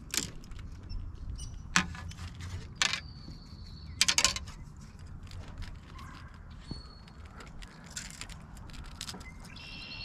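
A few sharp clicks and knocks with light metallic rattling from fishing tackle being handled in a boat while a rod is cast and reeled, over a low steady background rumble.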